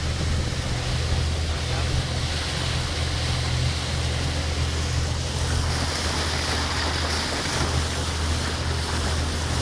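Pontoon boat under way: its motor runs with a steady low drone under the rush of water and wind on the microphone.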